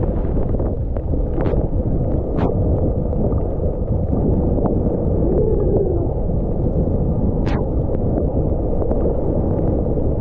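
Wind buffeting the microphone during a fast run through deep powder: a steady, heavy low rumble of rushing air, with a few brief sharp clicks or knocks.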